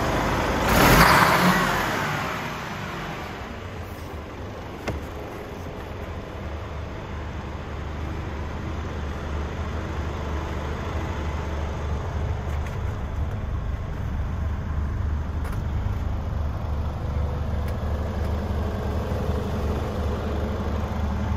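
Mercedes Actros 1840's straight-six diesel idling steadily. About a second in there is a loud hiss that dies away within a couple of seconds, and a single knock about five seconds in, over the steady low idle hum.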